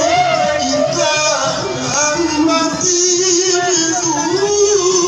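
Male voices singing an Islamic devotional maulid chant, with long wavering held notes over a steady rhythmic beat.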